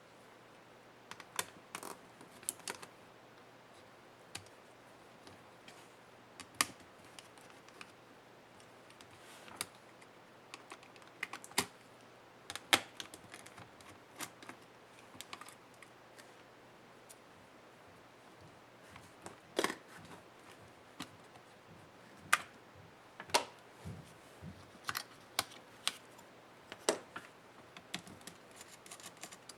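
Irregular small clicks and taps of hand tools against the plastic and metal parts of a Dell Latitude 7300 laptop being taken apart, with a few sharp clacks louder than the rest.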